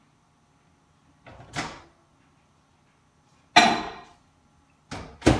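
Microwave oven door handled and shut with a loud clunk, followed by two sharp clicks near the end, as the bowl of melting chocolate goes back in for another 30 seconds.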